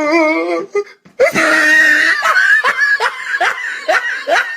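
A person laughing loudly and hard in short rising bursts, about three a second, after a wavering drawn-out vocal cry and a brief shriek-like outburst near the start.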